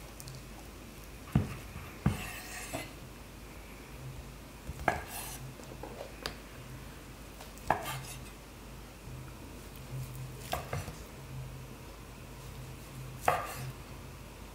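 Chef's knife slicing through pressed pork head and knocking down onto a wooden cutting board: about nine sharp knocks at uneven intervals, a few seconds apart at most.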